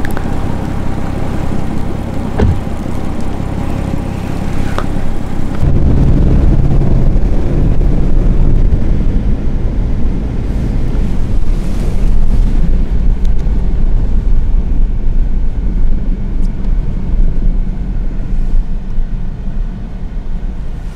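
Car driving, heard from inside the cabin: a steady low engine and road rumble that grows louder about six seconds in.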